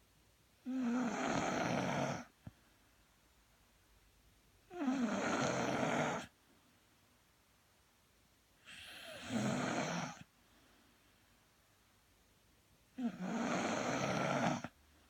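Snoring: four long snores at an even pace, about four seconds apart, with quiet breathing gaps between them.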